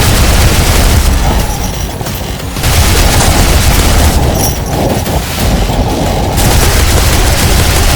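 Loud, dense racket of booms and rapid gunfire-like blasts over heavy bass, the high end muffled twice for a second or two, as an edited soundtrack filter does.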